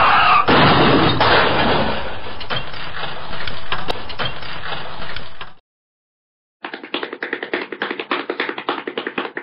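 A car crashing into a manure truck, with a load of manure pouring down onto an open car: a loud, dense rush dotted with small thuds and knocks for about five seconds that cuts off sharply. After a second's silence comes a rapid run of sharp taps, about ten a second, for about three seconds.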